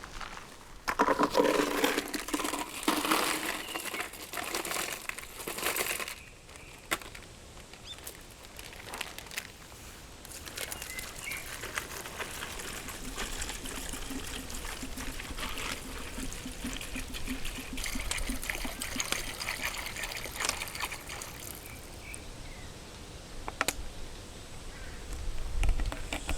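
Water pouring and trickling in irregular spurts, loudest in the first few seconds, with scattered small clicks.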